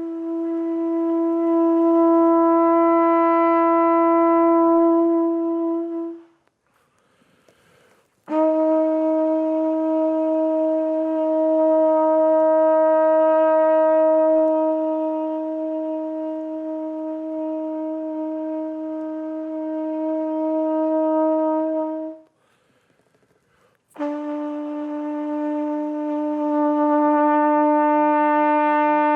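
Trumpet playing a warm-down: long soft sustained tones held for many seconds each, each note a little lower than the one before, with short pauses for breath about six seconds in and again about twenty-two seconds in.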